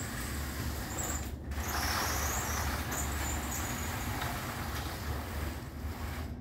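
Pleated retractable insect screen of a folding glass door being drawn across the opening, sliding along its track for a couple of seconds from about a second and a half in, over a steady low rumble.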